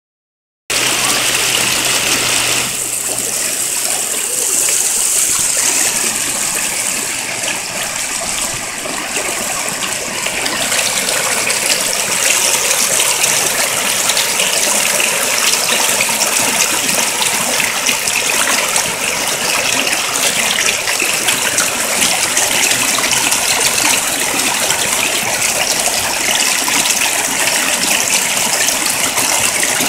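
Loud, steady rush of churning whitewater in a river rapid.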